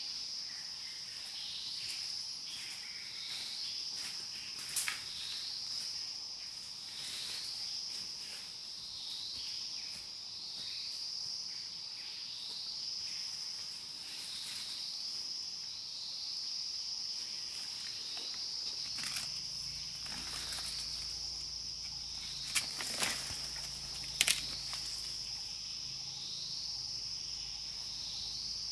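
A steady, high-pitched forest insect chorus with a repeating pulse every couple of seconds. Over it, a few sharp snaps and rustles of twigs and dry leaf litter underfoot and under hand, the loudest near the end.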